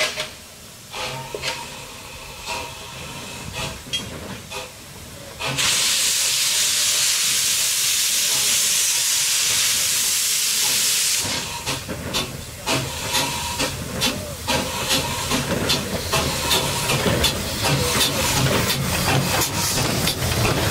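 Small steam locomotive blowing steam from its open cylinder drain cocks in a loud steady hiss for about six seconds, then moving off with a continuous run of exhaust chuffs and clanks.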